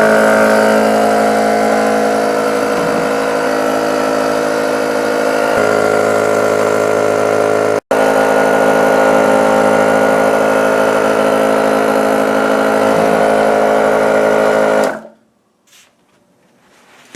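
Husky 120V inflator air compressor (model 365164) running steadily, a loud electric motor-and-pump drone, while inflating a bicycle tube. It drops out for an instant about 8 seconds in and stops about 15 seconds in.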